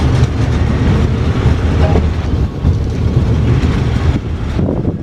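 Thai express passenger train rolling past at close range, a steady heavy rumble with the clatter of wheels over rail joints.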